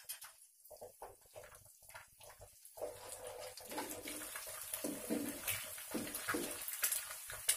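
An egg frying in hot oil in a small non-stick wok, crackling softly at first. About three seconds in it turns to a louder, steady sizzle as a spatula scrambles it, with scraping strokes against the pan.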